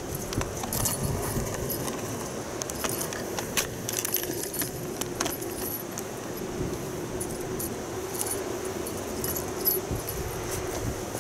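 Small bell on a cat's collar jingling in irregular tinkles and clicks as the cat bats and bites at a toy mouse, over a steady low hum.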